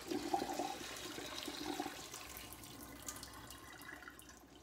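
Kitchen tap running into a sink while rinse water is poured off a metal pot of washed mustard greens, with splashing and sloshing in the first couple of seconds. The running water fades about three seconds in.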